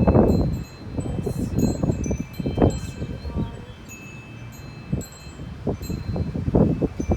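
Wind chimes ringing irregularly in gusty wind, over the low rumble of wind gusts buffeting the microphone.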